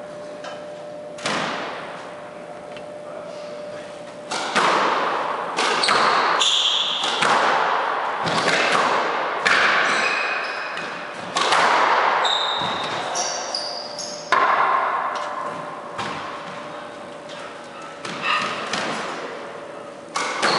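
Squash rally: the hard ball cracks off racquets and the walls roughly every one to two seconds, each hit ringing in the enclosed court. Short, high shoe squeaks on the wooden floor come between the shots.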